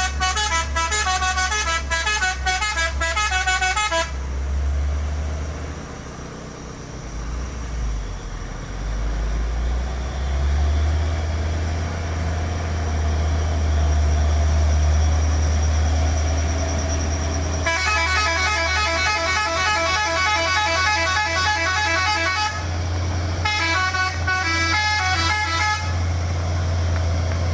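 Fuso dump truck's modified musical multi-tone horn, telolet-style, playing quick note-by-note tunes three times: for about four seconds at the start, again for about five seconds past the middle, and a shorter run near the end. Underneath, the truck's diesel engine runs with a steady low drone.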